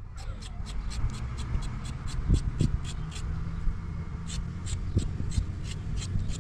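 A knife scraping the skin off a carrot in quick, even strokes, about four a second, with a short pause about halfway through.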